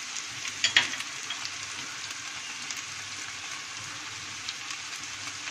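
Vegetables with butter and spice pastes sizzling steadily in a frying pan on a low gas flame, with a couple of light clicks about a second in.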